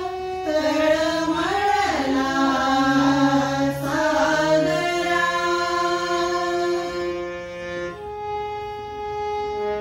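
Women's voices singing a Marathi song together, accompanied by a harmonium. About halfway through the singing stops and the harmonium plays on alone in long held notes.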